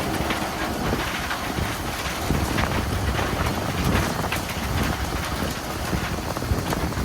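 Fishing boat at sea: a steady low engine rumble under wind noise on the microphone, with scattered short knocks.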